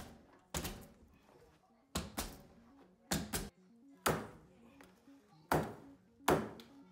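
Corded electric staple gun firing staples through stair carpet into the tread, about ten sharp snaps, many in quick pairs, with faint music underneath.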